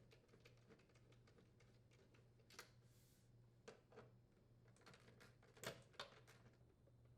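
Faint, scattered clicks and ticks of a Phillips screwdriver working the screws out of a dishwasher's control panel, over a faint steady low hum.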